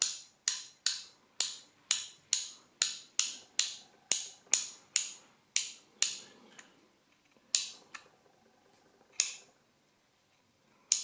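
Large hand ratchet from a Gedore socket set being turned slowly so that its pawl clicks over one tooth at a time: sharp metallic clicks with a short ring, about two a second for some six seconds, then a few more spaced apart.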